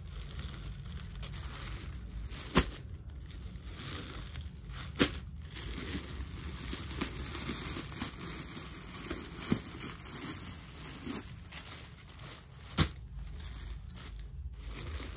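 Clear plastic packaging on folded suits crinkling and rustling as the packets are handled and laid down, with a few sharp clicks spread through it.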